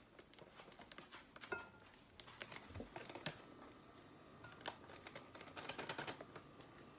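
Faint scattered clicks, taps and light scraping: a measuring cup scooping a dry ingredient out of a small box.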